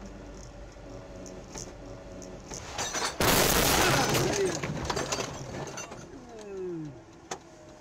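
Head-on car collision about three seconds in: a sudden loud crash of crunching metal and breaking glass that fades over a couple of seconds. Before it, the steady running of the car on a wet road.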